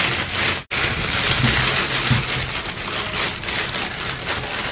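Thin plastic carrier bag crinkling and rustling as its knot is untied and a hand reaches in among the jujube fruits.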